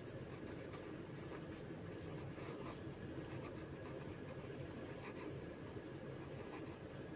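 Faint scratching of a pen writing on paper, over a steady low background hum.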